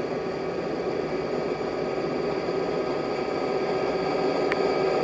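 A vehicle running steadily, slowly growing louder, with a single sharp click near the end.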